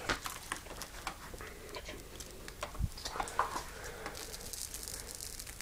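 Scattered light clicks and taps from handling the stretched-out hose of a Dyson DC25 upright vacuum, with one dull thump about three seconds in.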